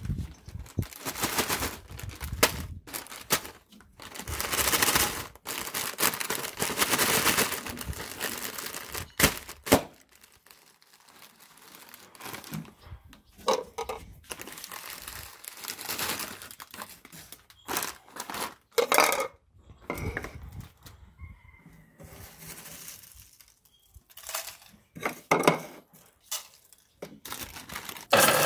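Foil potato-chip bags crinkling and rustling as they are handled and opened, with crisp chips rattling, in irregular bursts that are busiest in the first eight seconds and sparser after.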